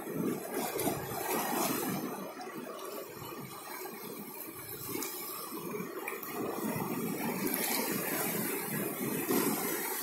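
Mediterranean surf: small waves breaking and washing in over a flat rock shelf at the shoreline, a steady rushing that swells and eases in surges.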